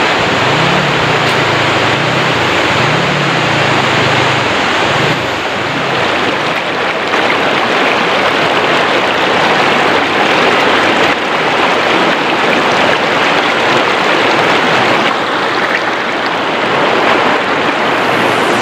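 Loud, steady rush of river water. A faint low wavering hum runs under it for the first few seconds.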